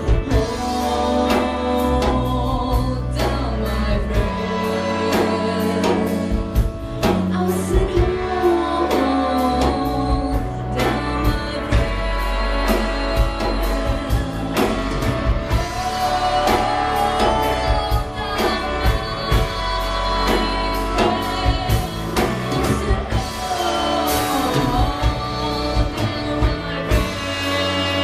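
Live band music with singing over drums, bass and guitar, and a regular drum beat.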